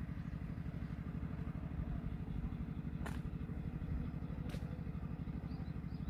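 A low engine or motor running steadily, with an even pulsing throb, and two faint clicks about three and four and a half seconds in.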